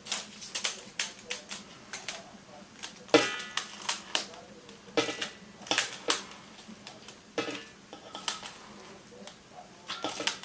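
Metal spoon clinking and scraping against stainless steel bowls while scooping soft paste out of a small pot into a large mixing basin: an irregular string of sharp taps and clicks, a few with a brief metallic ring.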